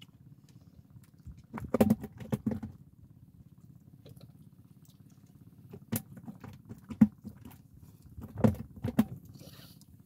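Scattered handling knocks and clicks as fishing line is tied onto a rig by hand, over a low steady hum, with sharp clicks near the middle and a few more near the end.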